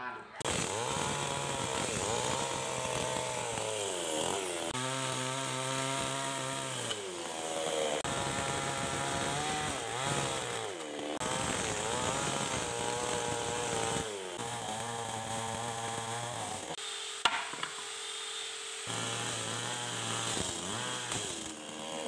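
Chainsaw cutting into a wooden stump, its engine pitch repeatedly rising and sagging under load, breaking off every few seconds. A single sharp click about two-thirds of the way through.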